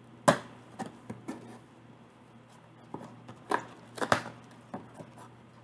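Cardboard boxes and packaging being handled and opened by hand: about ten sharp, irregular taps and knocks. The loudest comes just after the start, and a cluster follows a little past the middle.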